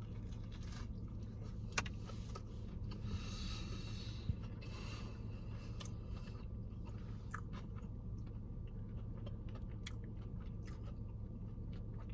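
Mouth sounds of someone biting into and chewing a crispy fried chicken tender topped with a gravy-dipped biscuit: scattered small crunches and clicks, thickest about three to five seconds in, over a steady low hum.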